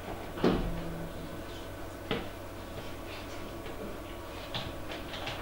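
Two sharp knocks, the first about half a second in and louder, the second about two seconds in, followed by a few faint clicks, over a steady low room hum.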